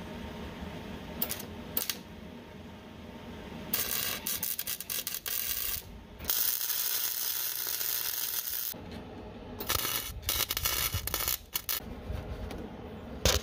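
Wire-feed welder arc crackling as it plug-welds a new steel plate onto a rusted trailer frame. There are two short blips first, then three bursts of steady crackle a few seconds each, separated by brief pauses.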